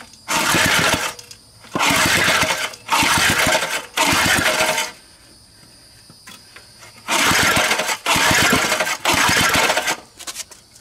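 A 1984 Briggs & Stratton small engine cranked with its recoil starter: seven pulls, four in quick succession, a pause, then three more, each a brief whirr of the rope and the engine turning over without running.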